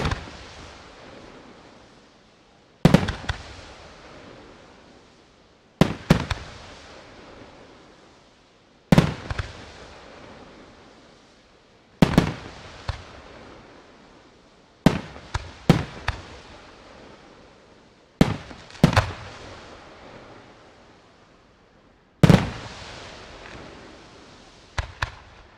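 Aerial firework shells bursting one at a time, about every three seconds, each a sharp bang trailing off in a fading echo, several with a smaller second report just after. Two quick bangs come close together near the end.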